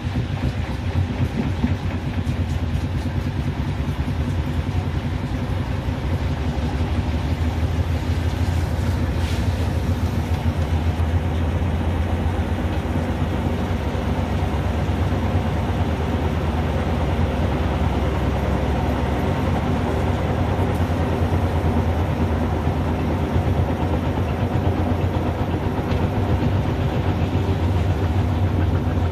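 Beko WMB71543W front-loading washing machine spinning a badly unbalanced load, with a steady low drone and a fast rhythmic rumble as the drum shakes. Foam is building up in the drum: the unbalance has led to a suds lock.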